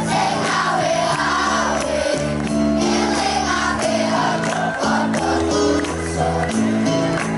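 Music with singing: voices sing over a steady accompaniment of held chords that change every second or so.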